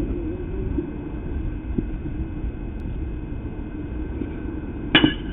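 Steady low outdoor rumble, then one sharp crack with a brief ring about five seconds in.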